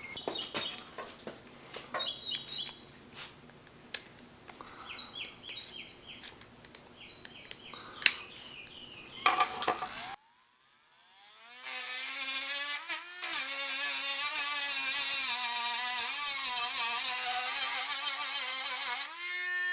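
Dremel Stylus cordless rotary tool, running on freshly replaced 18650 lithium cells, spinning up about eleven seconds in and then running with a steady high-pitched whine; its speed steps up near the end. Before that there are light handling clicks.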